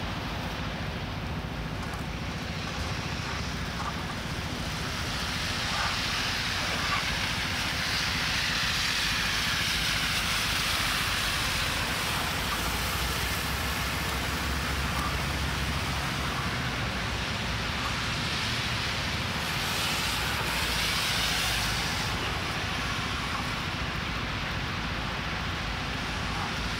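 Steady hiss of city traffic on wet, snowy streets, with a low rumble underneath; it grows louder for about fifteen seconds in the middle, then eases off.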